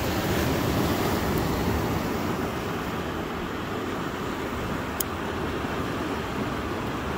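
Steady rushing of ocean surf and wind at a rocky shore, with one short faint click about five seconds in.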